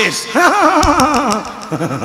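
A man's voice through a microphone and PA drawing out one long wavering wail of about a second, a mock howl; lower, choppier voice sounds follow near the end.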